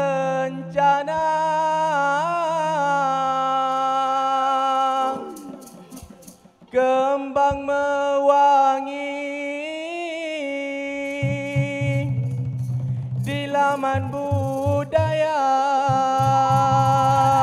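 Dikir barat lead singer (tok juara), a man, singing a slow solo vocal line into a microphone, holding long notes with wavering, ornamented turns. He breaks off about a third of the way in and then resumes. Over the second half a low, pulsing hum sounds beneath the voice.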